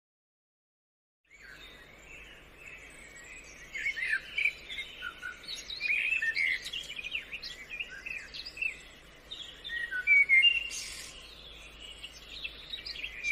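Birds chirping and calling, many short overlapping chirps over a faint steady hiss of outdoor background. It starts after about a second of silence.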